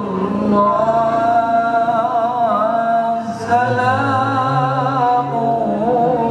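A male qari reciting the Qur'an in the melodic tilawah style through a handheld microphone, holding long ornamented notes that waver up and down, with a short break about three seconds in.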